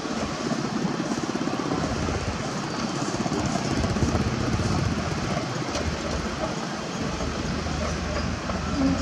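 Hyundai Robex 220 crawler excavator travelling on its tracks: diesel engine running under the steady clatter of the steel track links.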